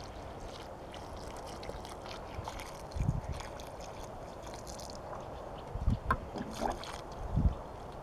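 Water pouring from a plastic watering can's spout into a puddle in freshly dug soil, a steady splashing trickle, watering in a newly planted sapling. A few short low thumps come about three, six and seven and a half seconds in.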